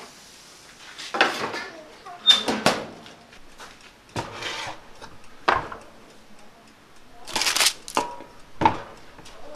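Metal baking tray slid out along a toaster-oven rack and set down on a bench: a series of separate clanks, knocks and scrapes. Near the end, baking paper rustles as a gloved hand lifts a lump of softened plastic off it.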